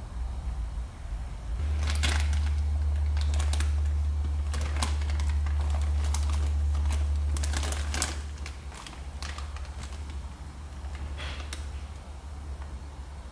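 Irregular scratching and crinkling on cardboard, a cat shifting and pawing about in a cardboard box, in scattered runs of sharp scrapes. For the first half a loud, steady low rumble runs underneath, dropping away a little past the middle.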